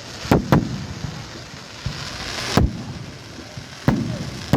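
Fireworks going off: five sharp bangs, two in quick succession near the start and then three more spaced a second or so apart, over a steady hissing, crackling background.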